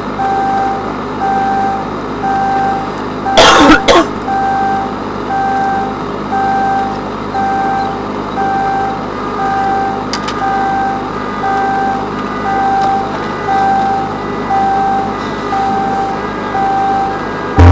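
Car alarm beeping steadily, a single tone repeating about three times every two seconds, set off by the bass of a car audio subwoofer system. A short, loud burst of noise cuts across it about three and a half seconds in.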